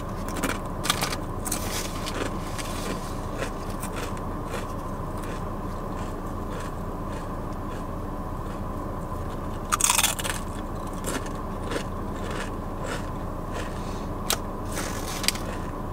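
Crunching on Sun Chips: sharp bites and chewing crunches at irregular intervals, the loudest about ten seconds in, over a steady low background hum.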